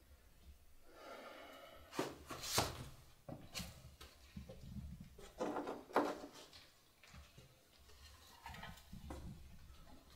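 A few scattered knocks and scrapes of objects being handled, with soft breathing between them.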